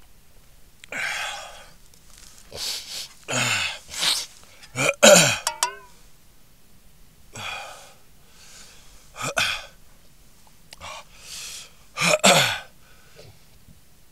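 A person's short breathy vocal sounds, coughs and gasps, in about ten separate bursts with gaps between. Several drop in pitch as they end.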